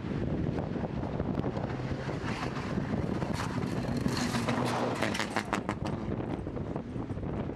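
Mitsubishi Lancer Evolution X rally car's turbocharged four-cylinder engine running hard on a gravel stage, with loose gravel crunching under the tyres. It is loudest as it passes close about four seconds in, with a quick run of sharp cracks soon after. Wind buffets the microphone throughout.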